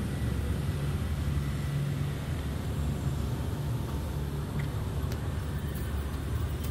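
Steady low rumble of road traffic, with a constant engine-like hum.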